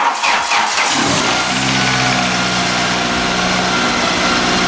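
Opel Astra coupe engine cranking briefly on the starter, catching about a second in and settling into a steady idle. This is its first start after nearly two years laid up.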